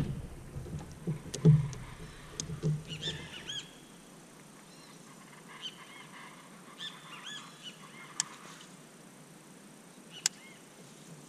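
Birds calling in short repeated chirps, in several small clusters. A few low knocks sound in the first few seconds, and two sharp clicks come later.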